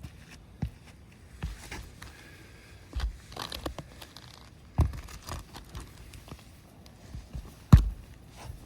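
Roof shingles being handled and fitted: scattered knocks and scraping, with a tearing, crinkling stretch about three seconds in and the loudest knock near the end.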